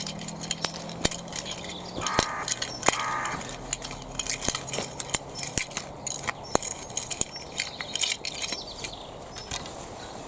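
Irregular crunching and clicking of soil and a trowel as swede seedlings are planted out and firmed in by hand.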